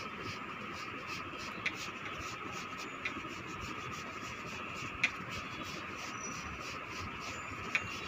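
A steady faint mechanical whir with a few sharp clicks, four in all, the loudest about five seconds in.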